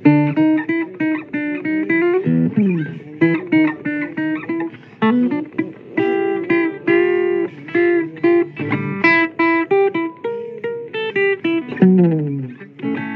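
Solo blues guitar break: picked single notes and chords, with notes sliding down in pitch about two seconds in and again near the end.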